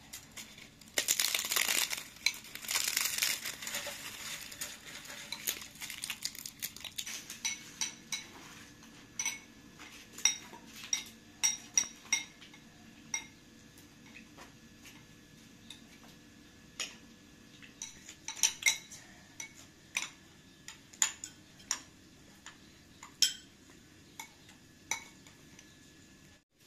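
Metal utensils clinking against dishes and pots: many sharp, briefly ringing clinks at irregular intervals, after a burst of rough scraping noise about a second in.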